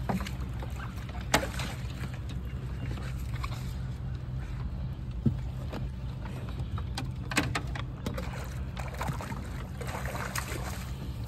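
Boat motor running steadily, with a few sharp knocks on top, the loudest about a second in.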